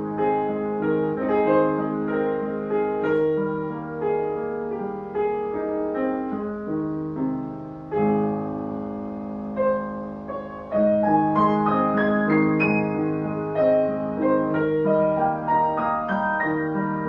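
Solo piano music: a melody played over held chords.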